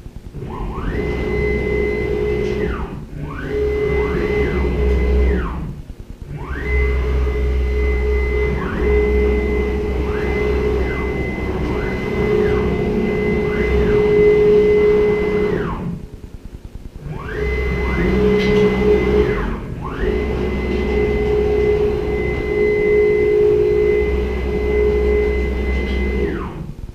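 The stepper motors of an AVID CNC router drive its gantry in several rapid jog moves. Each move is a whine that rises in pitch as the machine speeds up, holds steady, and falls away as it stops, with a low hum under it. There are short pauses between moves.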